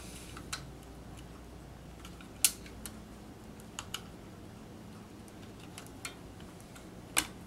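Scattered small clicks and taps of the plastic parts of a Shark motorized pet tool being handled as its spring is fitted back into the housing. Two sharper clicks stand out, one about two and a half seconds in and one near the end.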